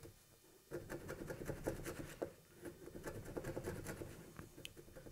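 Hand broach scraping out the tang hole in a curly maple handle block: a rapid run of scratchy rasping strokes starting about a second in.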